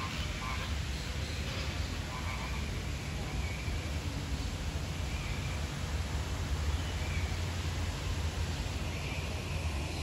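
Outdoor background: a steady low rumble, with a few faint, brief distant calls, mostly in the first few seconds and once more about seven seconds in.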